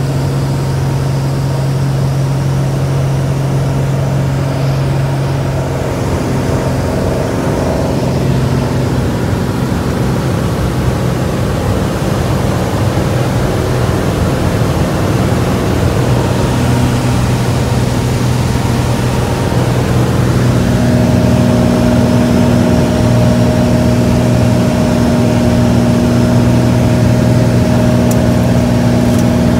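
Cessna 182A Skylane's six-cylinder Continental O-470 piston engine running steadily. About twenty seconds in its pitch steps up and it gets slightly louder, a rise in engine speed.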